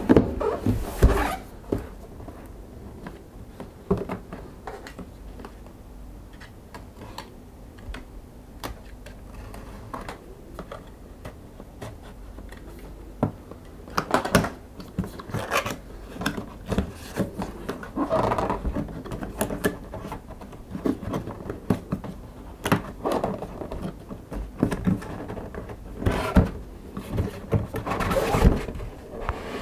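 Cardboard box being handled: scattered knocks, scrapes and rubbing as it is turned over and set down. Near the end its tabs and lid flaps are pulled open.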